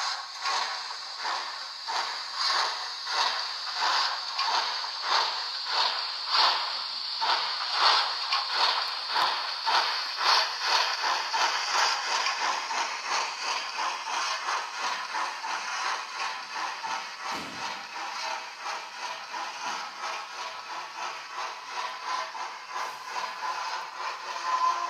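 Hornby Duchess of Montrose OO-gauge model steam locomotive's digital sound decoder playing steady, regular steam chuffs over a continuous hiss, the chuffs coming closer together as the train gathers speed and pulls away.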